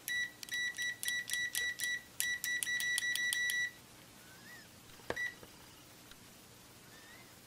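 Digital multimeter's continuity beeper sounding as the test probe tips touch together: a quick run of short high beeps, then longer beeps with brief gaps, stopping a little under four seconds in. About a second later comes a click and one short beep as a front-panel button is pressed.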